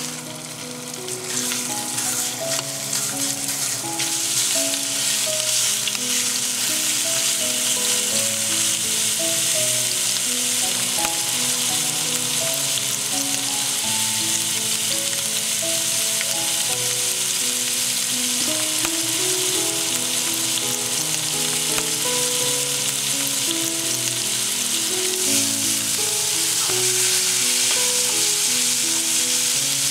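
Ground pork sizzling in hot oil in a frying pan, a steady hiss that builds over the first few seconds. A gentle background music melody plays underneath.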